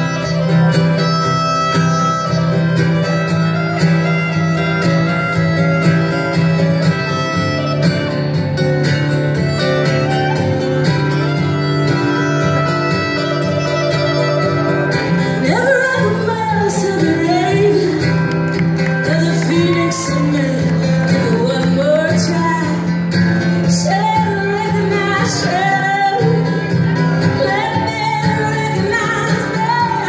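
Live folk band music: clarinet and guitar play an instrumental passage, then about halfway through a woman's voice comes in singing over the guitar.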